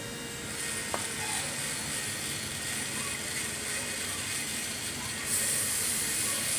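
Aerosol cleaner sprayed from a can onto a scooter's CVT pulley, a hissing burst about five seconds in that lasts about a second, over a steady background noise.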